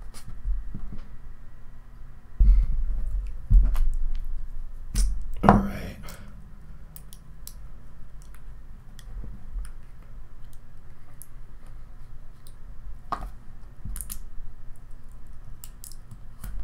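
A Pop disposable vape being pried apart by hand: scattered small plastic clicks and scrapes as the shell, battery and cotton wick are worked loose, with several louder low thumps in the first six seconds.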